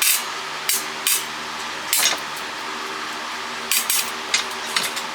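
Small metal and plastic parts from dismantled cordless phones clinking and clattering as they are handled and dropped while being sorted, about eight or nine sharp clicks at uneven intervals. A steady low hum runs underneath.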